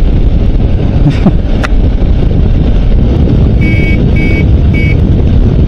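Wind rush on the microphone and engine rumble of a moving motorcycle, with three short horn beeps about four seconds in.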